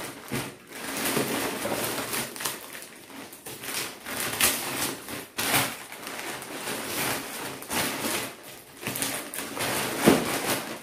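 Courier parcel packaging rustling and crinkling as it is handled and turned over, with many irregular crackles and taps.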